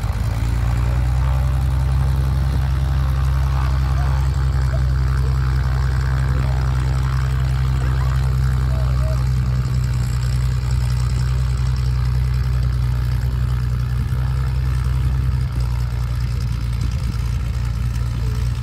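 An engine idling steadily close by, a low, even drone that sets in right at the start and shifts slightly about fifteen seconds in.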